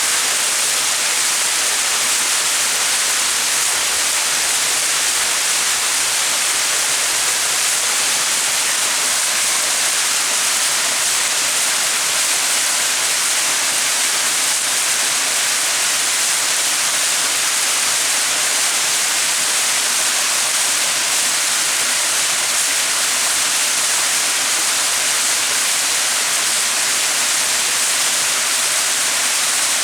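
Small mountain waterfall splashing steadily: an even, hissing rush of falling water with no change.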